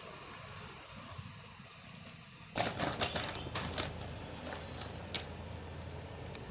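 Hands squeezing and kneading the fibrous pulp of toddy palm fruit in a steel tin: wet squelching and crackling that starts about two and a half seconds in as a quick cluster, then thins to a few scattered squishes.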